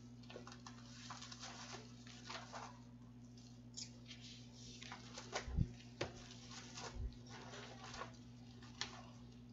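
Quiet room tone: a steady low electrical hum with scattered soft clicks and brief rustles.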